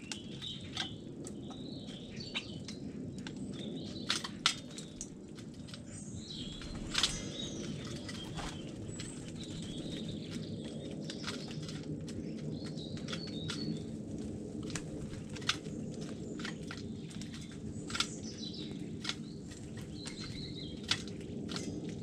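European starlings feeding at a hanging seed feeder: scattered sharp taps and clicks, the loudest around four to five seconds in, around seven seconds, and a few more later, over bird chirps and whistles, with a steady low background hum.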